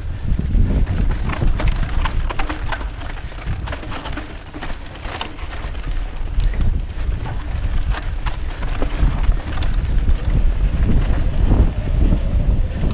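Wind buffeting a GoPro's microphone while a cross-country mountain bike descends a dirt singletrack, with constant clattering and knocks from the tyres and bike over rocks and ruts.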